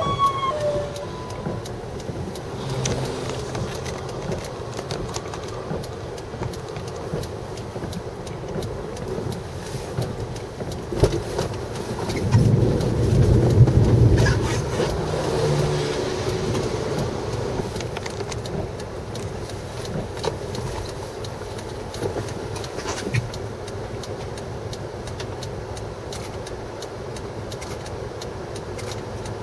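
Outdoor road noise: a steady low rumble of wind and traffic, with a vehicle passing close by and rising to a louder swell for a few seconds around the middle.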